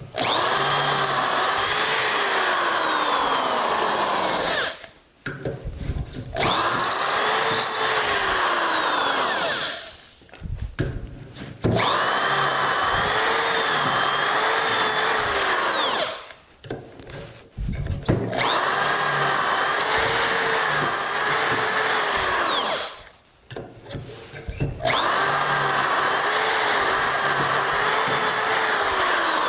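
Electric drill boring dowel holes in wood through a Dowelmax doweling jig: five runs of about four seconds each, with short pauses and knocks between them. The motor's pitch bends as the bit cuts into the wood.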